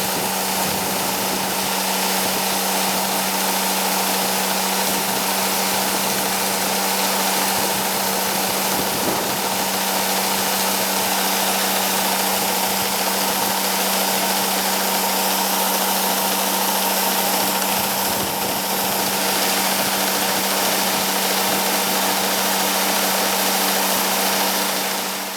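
Heavy harvest machinery running steadily: a constant engine hum with a strong hiss and whir over it, unchanging throughout.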